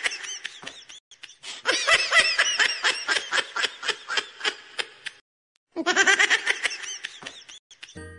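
High-pitched laughter in rapid bursts of giggles, stopping for about half a second near five seconds in and then starting again.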